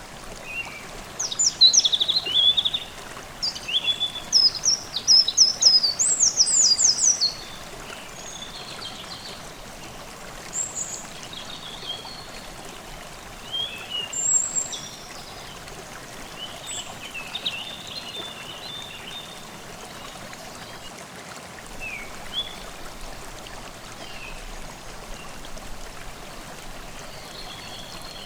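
Forest stream babbling steadily over stones, with songbirds singing: loud, fast high trilled phrases in the first seven seconds or so, then softer scattered chirps and calls.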